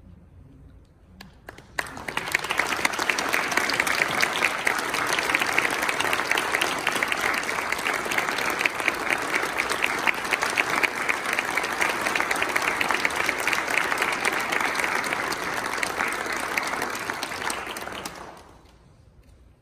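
Audience applauding: a few scattered claps, then steady applause for about sixteen seconds that fades out shortly before the end.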